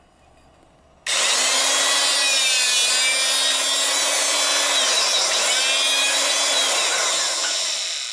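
Ogura HPC-2213W portable hydraulic punch's electric motor and pump starting about a second in and running loud and steady with a whine, as it drives the punch through steel plate. The pitch sags for a moment about halfway, then the motor winds down near the end.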